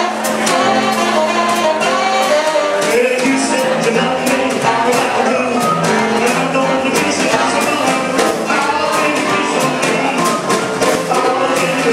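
Live rhythm-and-blues band playing: drums, upright bass, piano, electric guitar and saxophones, with a man singing lead at the microphone.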